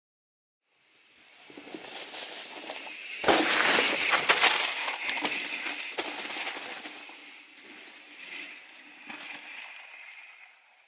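Mountain bike riding away down a dry, leaf-covered dirt trail: tyres crunching through leaves and dirt, with knocks and rattles from the bike. It rises from about a second in, is loudest a few seconds in with a heavy thump, then fades as the bike moves off.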